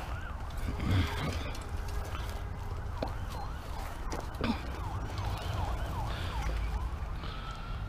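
A faint siren in the distance: quick repeated up-and-down sweeps in the middle, then a slow rising wail near the end, over a steady low outdoor rumble. A few light knocks from a bicycle being handled on the grass.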